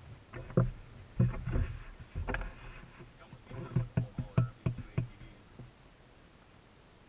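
Handling noise: a run of sharp knocks and thuds, about a dozen in five seconds, as an arm bumps and rubs against the camera.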